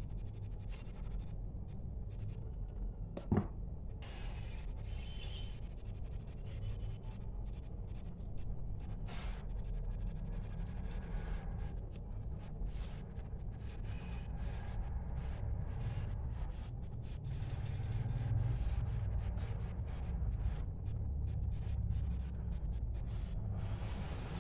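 Washi tape and paper being handled and rubbed down by hand: soft rustling and rubbing with scattered light scratches, over a low steady hum. One sharp tap about three seconds in.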